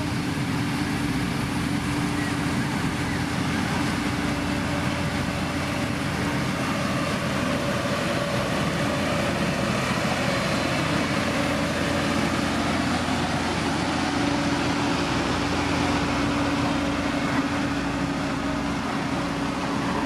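Diesel engines of a SANY motor grader and Sakai SV521D single-drum road rollers running steadily as they spread and compact a gravel road base, with a steady droning hum.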